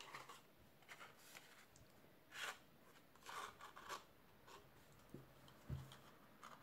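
Faint rustling and brief scrapes of cardstock as a small paper box is fitted together and handled, with a soft knock near the end.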